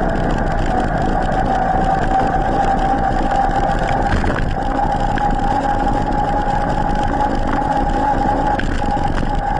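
E-mountain-bike's electric drive motor whining steadily under Turbo assist, its pitch rising slightly over the first two seconds and then holding, over a low rumble of wind and tyres on asphalt.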